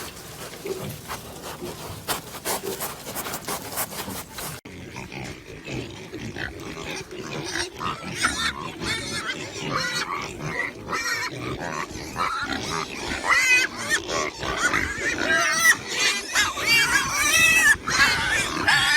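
Pigs grunting and shuffling, then after a sudden change a chorus of high-pitched wavering squeals that grows louder toward the end.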